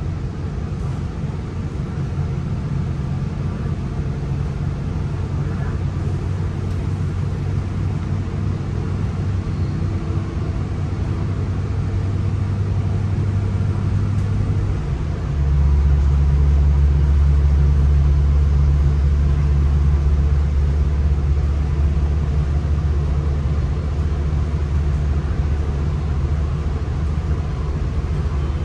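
Inside the cabin of a SMART Nippon Sharyo diesel multiple unit running at speed: a steady low drone from the diesel engine over wheel and rail noise. About halfway through, the drone drops to a deeper, louder note and holds there.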